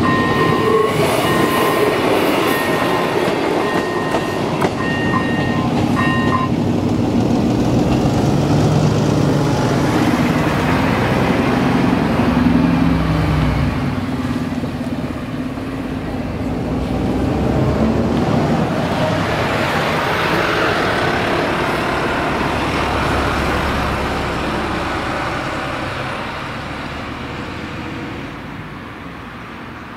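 Electronic level-crossing bell (ZV-01) pulsing a steady tone as a diesel train rolls past, the bell cutting off about six seconds in. A lorry's diesel engine then pulls across the crossing with its pitch gliding, and a car's tyre noise swells and fades near the end.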